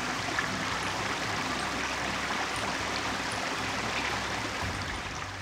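Small woodland brook running over mossy rocks: a steady rushing, babbling water sound that starts to fade just before the end.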